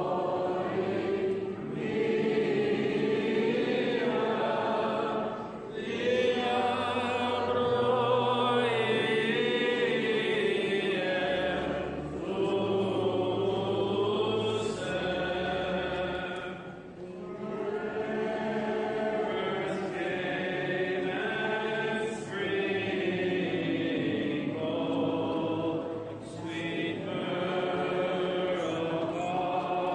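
Several voices chanting a slow Greek Orthodox hymn together in long phrases with brief pauses between them. A low note is held steady under the middle phrases.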